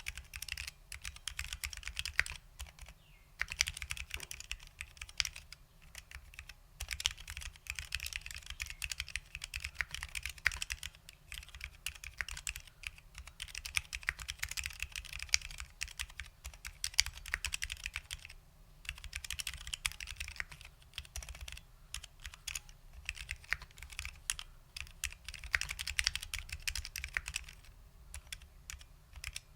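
Fast, continuous typing on a custom mechanical keyboard with lubed SKCL Green Alps switches, a clicky Alps switch, under doubleshot ABS keycaps, with a few brief pauses between bursts of keystrokes.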